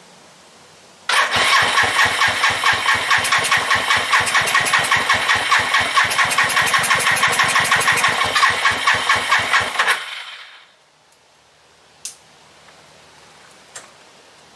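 Suzuki GN250's single-cylinder engine cranked on the electric starter in a cold start after a year of standing, with a rhythmic chugging of compression strokes for about nine seconds. It does not catch, and the cranking stops, followed by a couple of faint clicks.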